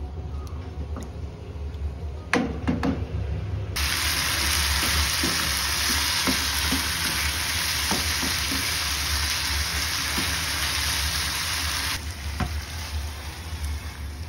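Kitchen sounds at the stove: a few quick knocks of a utensil against a cooking pot, then a steady hiss that starts suddenly a few seconds in and cuts off about eight seconds later, over a low steady hum.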